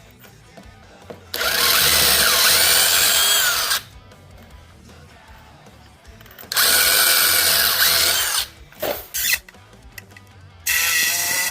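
Power tool run in three loud bursts of about two seconds each, its pitch gliding up and down during each burst, with short quiet gaps between.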